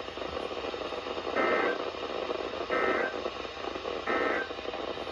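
Weather radio receiver hissing with static, with three short, evenly spaced bursts of warbling data tones a little over a second apart. These are the EAS end-of-message (NNNN) bursts that close a severe thunderstorm warning.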